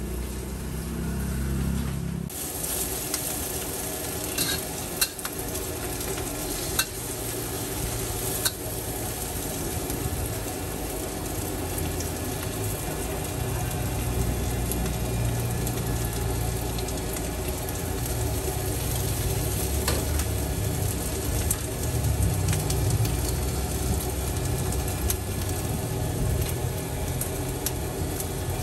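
Noodles stir-frying in a hot wok: a steady sizzle that starts about two seconds in, with the spatula clinking and scraping against the pan several times. A low rumble runs underneath.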